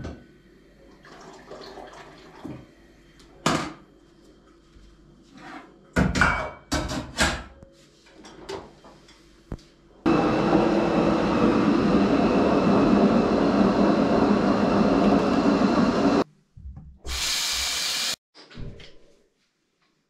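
Water running from a tap into a sink for about six seconds, stopping abruptly, after a run of small handling clicks and knocks; a shorter hiss follows near the end.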